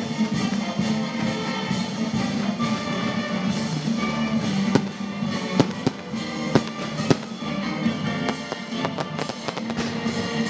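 Fireworks going off over music that plays throughout, with several sharp bangs between about four and seven seconds in.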